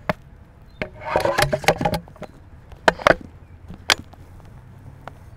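Carl Gustaf M2 recoilless rifle being loaded at the breech with an 84 mm round: a series of sharp metal clicks and knocks, with a stretch of scraping and clanking about a second in.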